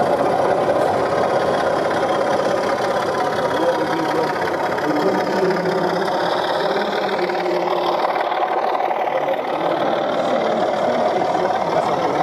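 Diesel engine sound from the sound decoders of a pair of model diesel locomotives running past on the layout: a steady engine drone with a knocking beat.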